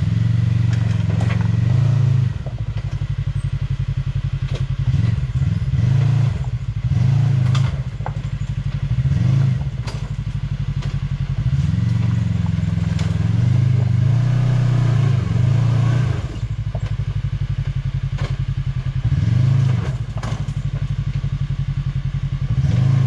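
Side-by-side UTV engine running at low speed with repeated throttle blips that swell and ease every second or two, with occasional knocks and scrapes as it crawls over rocks.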